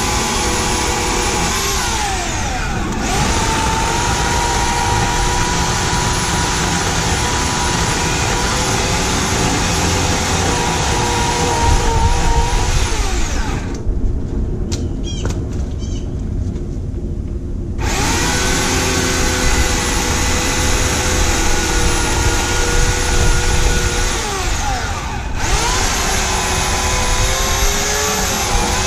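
Homelite 16-inch corded electric chainsaw running in several long bursts while cutting brush. Its motor whine falls away each time the trigger is let go, with a pause of about four seconds midway.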